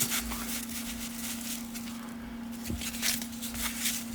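Baseball cards and cellophane pack wrappers being handled: short, faint rustling and sliding sounds as cards are flipped through, over a steady low hum.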